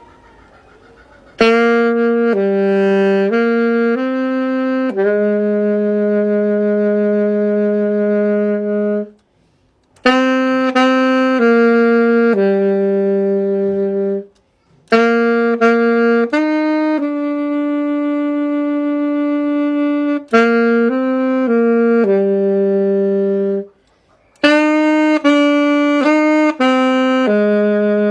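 Solo saxophone playing a slow worship melody in short phrases. Each phrase ends on a long held note, with brief pauses for breath in between and no accompaniment.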